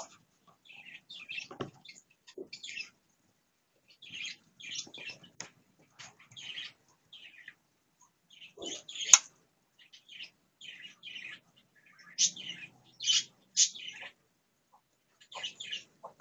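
Birds chirping in short, scattered bursts, with a single sharp click about nine seconds in.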